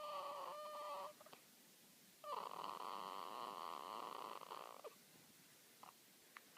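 Newborn baby's sleep noises: a high, pitched squeak that ends about a second in, then a longer rattly, fluttering snore-like breath lasting a couple of seconds, followed by a few faint clicks.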